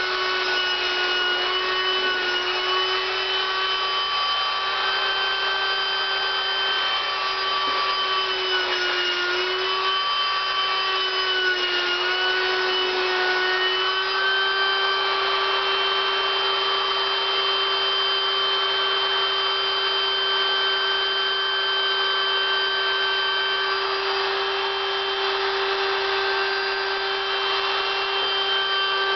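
Electric air pump running steadily with a motor whine, blowing air into an inflatable latex suit. Its pitch dips briefly a few times about ten seconds in.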